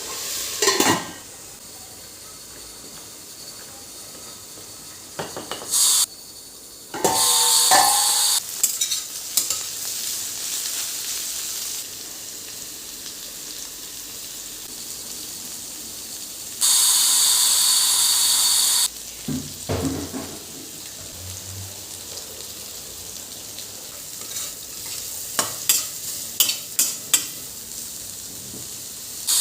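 Food frying in hot oil in a pan, sizzling steadily while a spoon stirs and taps against the pan. The sizzling flares up loudly twice for a couple of seconds.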